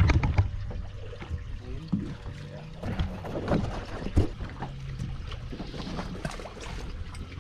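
Wind and water noise around a small fishing boat at sea, with scattered knocks and clicks from rods and gear being handled on deck.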